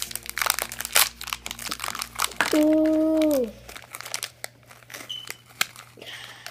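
Foil blind-bag wrapper crinkling and tearing as it is pulled open by hand, with the plastic toy capsule inside rattling against it. About two and a half seconds in, a loud steady tone is held for about a second and slides down in pitch at its end; after that, only lighter crackles.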